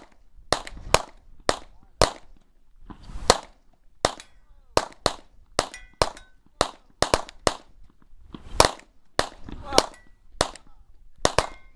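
AR-15 rifles fired in fast semi-automatic strings, about two dozen shots at uneven spacing, several close together, with a short metallic ring after some of them.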